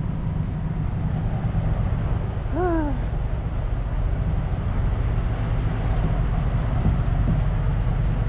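Diesel truck engine idling steadily, with a short falling squeak about two and a half seconds in.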